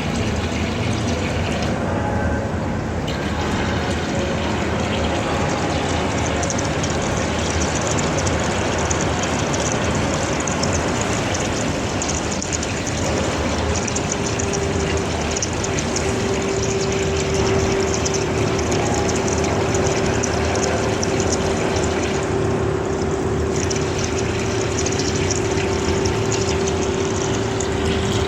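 CNC machine at work on a TMT rolling-mill roll with coolant streaming, a steady running noise; a steady whine comes in about halfway through and holds.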